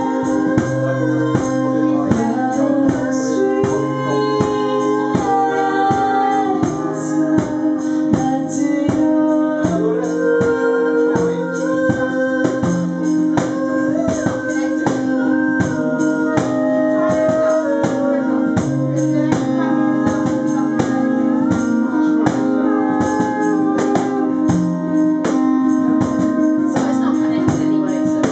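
Live band playing a song: strummed acoustic guitar over a steady percussion beat, with a held low tone underneath and a shifting melody on top.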